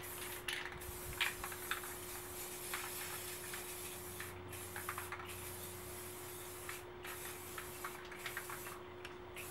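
Aerosol can of Rust-Oleum matte clear coat spraying in long hissing passes, with several short breaks between passes.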